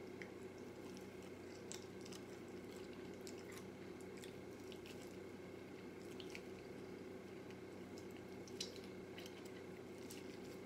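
Fried chicken being eaten by hand: faint wet chewing and lip-smacking with small scattered clicks as meat is torn off the bone, over a steady low hum.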